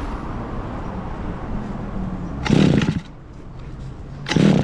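Kawasaki TF22 engine pump's small two-stroke engine running unevenly, then two short loud bursts of engine noise about two seconds apart with a quieter dip between them. The engine is faltering while its carburettor air screw is being set after a cleaning.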